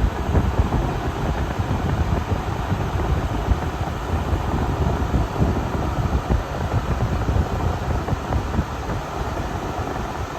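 Fedders A2Q10F2BG 10,000 BTU window air conditioner running, its fan blowing a steady rush of air, with gusty low rumble from the airflow buffeting the microphone that eases near the end. The Rotorex rotary compressor is barely heard under the fan.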